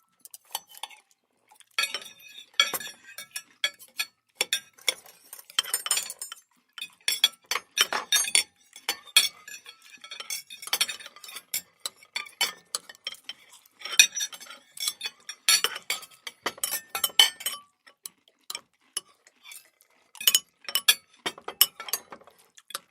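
Cutlery clinking and scraping against plates during a meal, in irregular bursts of sharp clicks with short pauses between them.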